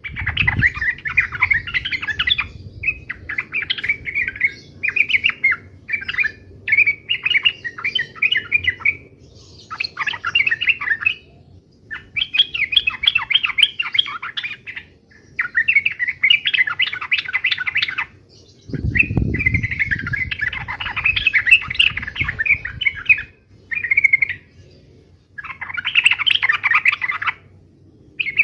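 Yellow-vented bulbul (trucukan) song: about a dozen bouts of rapid, chattering phrases separated by short pauses, with a low rumble under the song about two-thirds of the way through.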